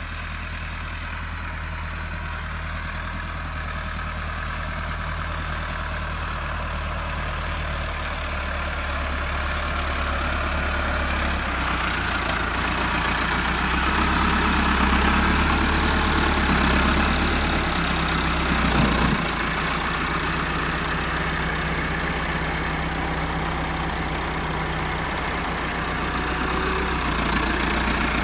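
Tractor engine running steadily. It grows louder toward the middle and eases back a little after.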